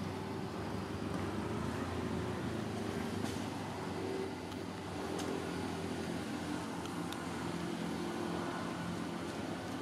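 A steady low drone of an engine running, with a few faint clicks.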